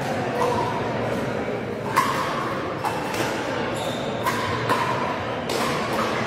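Pickleball paddles hitting a hard plastic ball, a series of sharp pocks with a brief ringing tone at irregular intervals, the loudest about two seconds in, echoing in a large sports hall over a steady murmur of voices.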